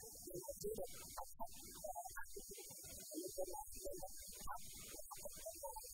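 Faint steady electrical hum with light hiss and scattered faint background noise; no speech.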